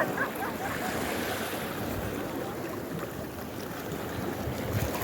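Sea surf washing on a beach, a steady rush of water noise mixed with wind buffeting the microphone.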